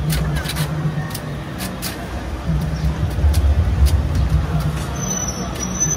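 An engine running with a steady low hum, swelling a little at times, with scattered light clicks over it. A thin high whine starts near the end.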